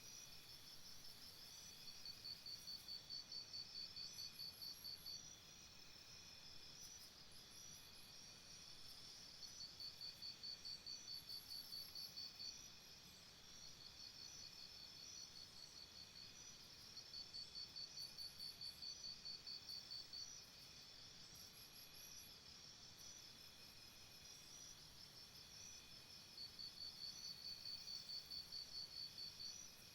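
Faint chorus of insects chirring steadily at several high pitches, with a louder pulsing trill, like a cricket's, that sounds in bouts of about three seconds, four times, and a few short high chirps.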